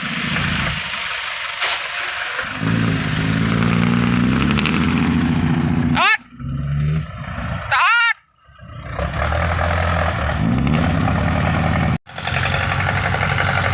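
A vehicle engine running under load, revving with its pitch rising and falling, broken by a few abrupt cuts in the sound.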